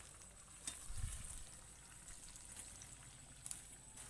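Chicken pieces deep-frying in oil in a kadai over a wood fire: a faint, steady bubbling sizzle. A dull thump comes about a second in, with a few light clicks.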